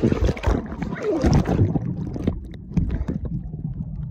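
Water rushing and a body thumping along a plastic water slide tube, with a brief vocal cry about a second in. From about two seconds in the sound turns dull and muffled: the phone is underwater in the splash pool.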